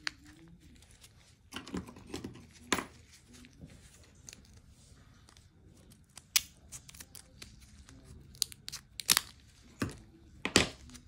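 Scissors snipping and tearing the plastic blister pack of a new coin-cell battery, with crinkling plastic and scattered sharp clicks. The loudest snaps come in the second half.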